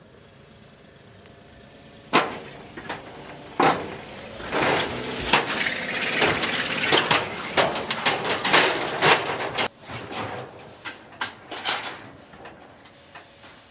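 A smart fortwo driving up the steel ramps of a car-transporter trailer, the metal ramp plates knocking and clanking under its tyres. A couple of sharp knocks come first, then several seconds of dense rattling and clanking that stops suddenly, then a few scattered knocks.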